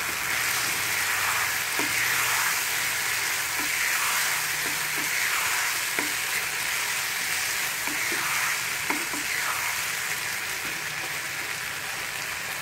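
Mushrooms and spring onion sizzling in sauce in a kadai while a wooden spatula stirs them. A few light taps of the spatula on the pan come through the steady sizzle.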